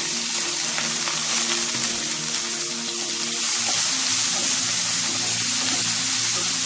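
Chopped shallots and green chillies sizzling loudly and steadily in hot oil in a frying pan as they are stirred with a wooden spatula.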